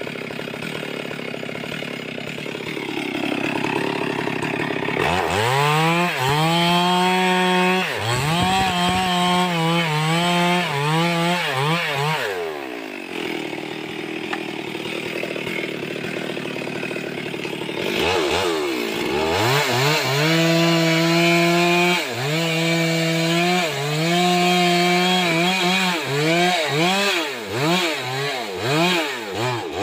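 Two-stroke chainsaw idling, then opened up to full throttle and cutting through a log, its pitch dipping again and again as the chain bites. It drops back to idle for a few seconds, then runs up and cuts again, ending in short throttle blips.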